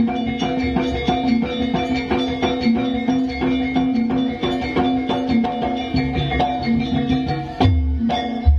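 Javanese jaranan accompaniment music: drums and tuned metal percussion play a dense, busy rhythm over steady held tones, with two heavy low strokes near the end.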